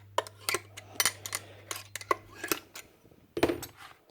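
Metal parts of a Paslode IM350+ framing nailer clicking and clinking as the tool is handled during a strip-down, with a louder clatter near the end.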